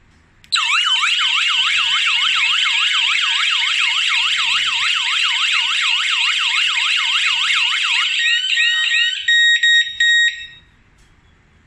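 eMastiff W2B home security alarm system's electronic siren going off, a loud warble of rapid rising sweeps about four a second. Near the end it changes to slower chirps and a few short steady beeps, then cuts off.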